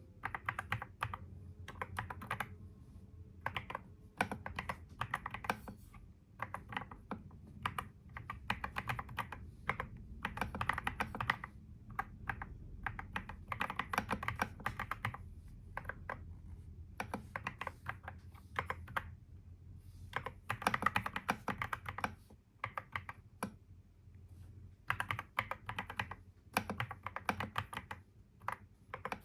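Typing on a computer keyboard: quick runs of key clicks lasting a second or two, broken by short pauses, over a faint low hum.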